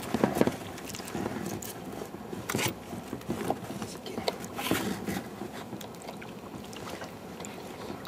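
Irregular splashing and knocks against the boat's side as a large wels catfish is held and wrestled by hand at the gunwale, the loudest knocks about half a second in.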